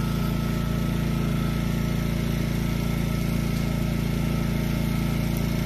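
An engine running steadily at an unchanging speed, an even hum with no revving.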